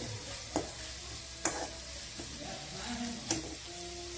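Sliced onions sizzling in hot oil in a metal kadai, stirred with a metal spoon that clicks against the pan three times. The onions are being fried until golden.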